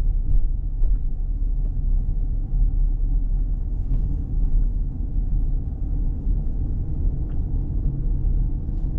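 Steady low road rumble of a car driving, heard from inside the cabin, with a few faint clicks.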